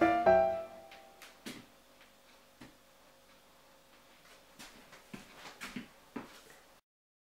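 A piano-music phrase ends with a last held note, followed by faint scattered clicks and light knocks in a small room. The sound cuts off abruptly near the end.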